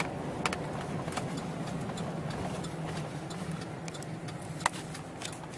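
Steady engine and road hum heard from inside the cab of a moving pickup truck, with scattered light ticks and one sharper click near the end.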